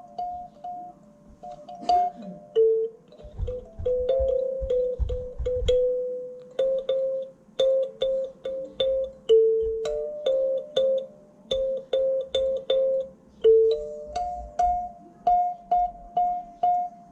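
Kalimba tines plucked one note at a time, a slow melody in the middle register with short pauses between phrases. A few dull knocks sound about three to six seconds in.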